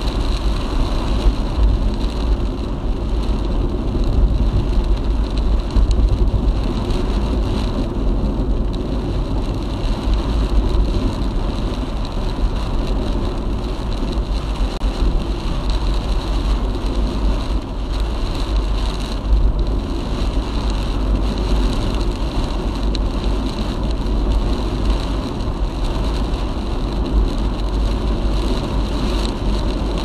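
Car driving on a highway: steady road and wind noise with a heavy low rumble.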